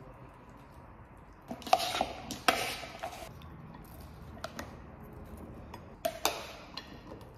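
A metal spoon clinking and scraping against a mixing bowl and dinner plates as salad is spooned out. There are a few sharp clinks, the loudest about two seconds in and again about six seconds in.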